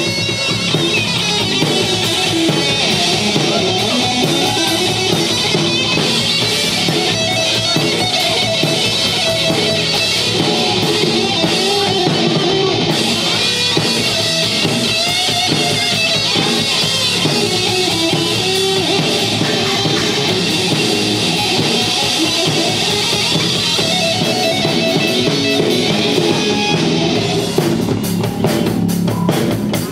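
Heavy metal band playing live: electric guitar, bass guitar and drum kit at full volume, the drums coming to the fore near the end.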